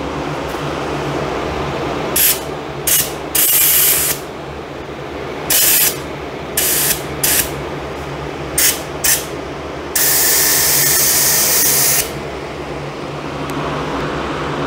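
Gravity-feed paint spray gun at about 35 PSI spraying sealer in short trigger pulls of hissing air, about eight brief bursts, then one long spray of about two seconds near the end. The steady hum of a dual exhaust fan runs underneath.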